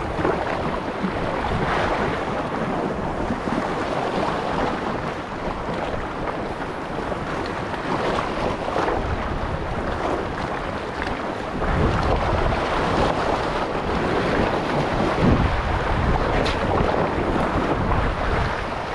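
Sea waves washing over shoreline rocks, with wind buffeting the microphone; the low rumble of the wind gets stronger a little past halfway through.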